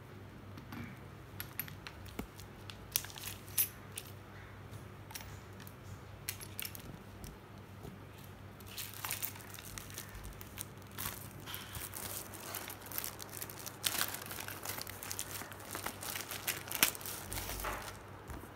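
Thin clear plastic bags crinkling and rustling as they are handled, with a few scattered clicks and light knocks before the crinkling becomes dense and continuous about halfway through.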